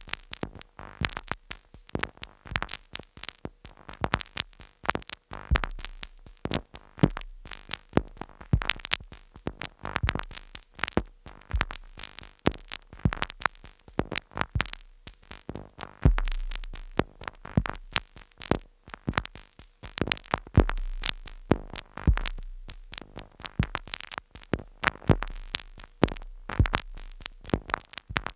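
Two Behringer Neutron analog synthesizers sequenced by a Korg SQ-10, playing glitchy abstract electronic noise: rapid, irregular clicks and short noise hits over a deep bass tone that comes and goes.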